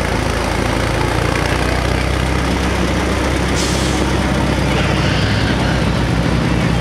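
1954 Farmall Super MTA tractor engine running steadily at low speed as the tractor drives past close by; its low beat becomes more distinct near the end. A brief hiss comes about three and a half seconds in.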